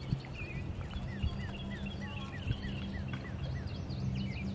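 A songbird calling a quick run of short falling chirps, about four a second, over a steady low engine hum.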